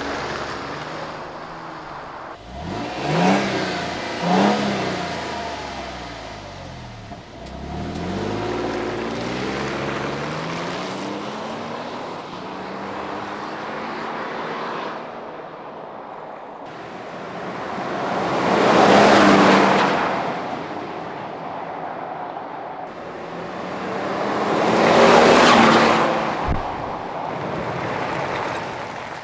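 Stock 2022 Toyota Tundra's twin-turbo V6 on its factory exhaust, accelerating with rising revs a few seconds in, then driving past twice, the sound swelling and fading with each pass. The exhaust note is really quiet and mild.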